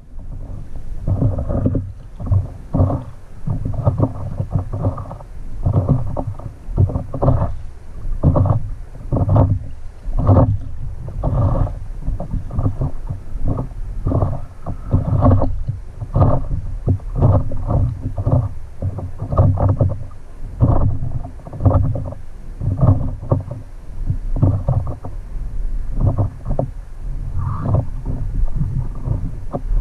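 Water sloshing and slapping against a stand-up paddleboard in a quick, uneven rhythm of about one to two splashes a second, over a steady low rumble.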